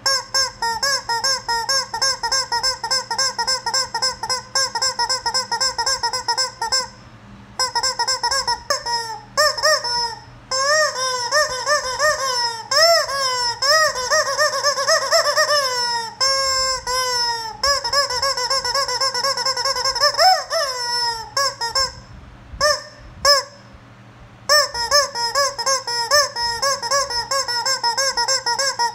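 Rubber chicken squeeze toy squawking as it is squeezed over and over: fast runs of short squawks, several a second, with some longer drawn-out squawks in the middle and two brief pauses.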